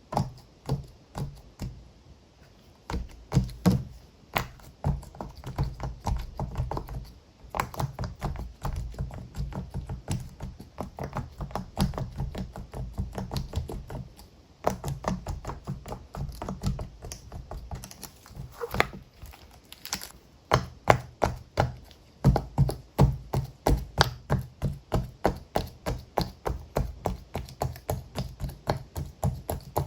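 Silicone pop-it bubbles on a keyboard-shaped push-pop toy being pressed in rapid runs, a quick series of dull pops and taps several a second, with short pauses between runs.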